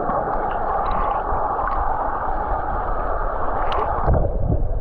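Small creek's water running steadily, a continuous rushing noise, with a few low bumps near the end.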